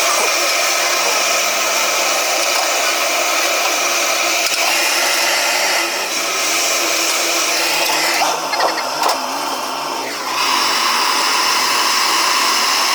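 Steady rushing air noise with a whine running through it, from workshop equipment. It thins out for about two seconds around eight seconds in, with a few clicks, then comes back with a steadier whine.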